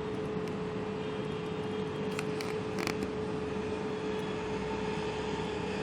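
Steady background hum and hiss with one constant tone, and a few faint clicks about two and three seconds in.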